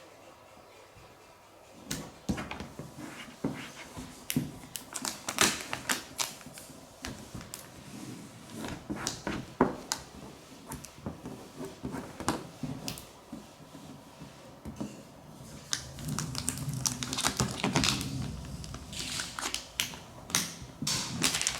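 Vinyl graphics and their backing paper being handled, peeled and pressed onto the car's bodywork: irregular crackling, rustling and sharp clicks that start about two seconds in, with a denser, fuller rustle in the last third.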